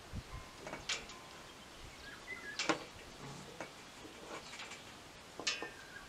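A paperback book being handled on a wooden table: a few faint, sharp paper clicks and rustles, the loudest about halfway through, over quiet room tone.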